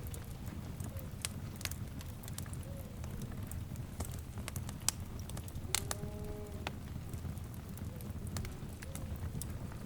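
Wood fire crackling over a steady low rumble, with scattered sharp pops. About six seconds in, a short animal call with a single held pitch sounds over the fire.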